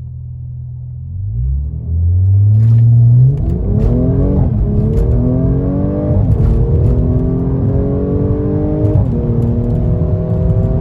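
Mercedes-AMG C43's twin-turbo V6, through a muffler-delete AWE Track Edition exhaust, idling, then revved up and held before a hard launch. It accelerates with rising pitch, shifting up a couple of times.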